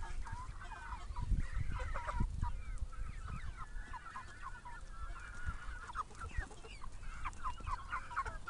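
A flock of white and brown chickens calling continuously, with many short overlapping peeps and clucks.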